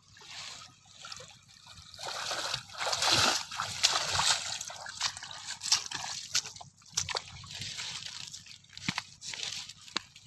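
Water sloshing and splashing as a person wades through a shallow pond thick with water hyacinth, loudest in the first half. Then come scattered wet steps and rustles through plants and mud.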